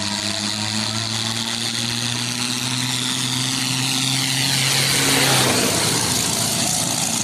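Mahindra tractor's diesel engine at full throttle racing toward and past, growing louder as it nears, its pitch dropping as it goes by about five seconds in.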